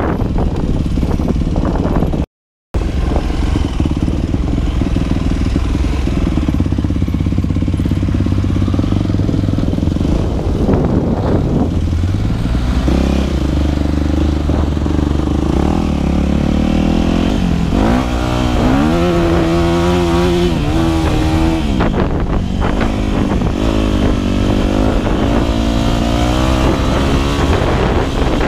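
Yamaha dirt bike's four-stroke single-cylinder engine running on a trail ride, its revs rising and falling with throttle and gear changes. The sound cuts out completely for a split second about two seconds in.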